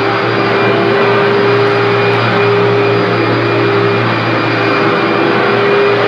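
Commercial upright vacuum cleaner running steadily as it is pushed over carpet, a steady motor hum with the rush of suction, pulling dry soil out of the pile.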